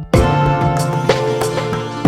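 Background music: plucked instruments over a steady percussive beat.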